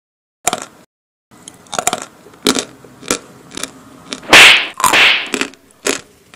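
A string of sharp cracks and crunches at irregular intervals, with two louder, longer noisy crashes about four and five seconds in.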